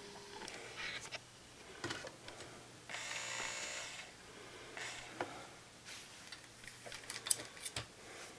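Faint handling noises of work on a radio chassis: scattered clicks, taps and scrapes of tools and parts. About three seconds in there is a buzzing, rasping sound lasting about a second.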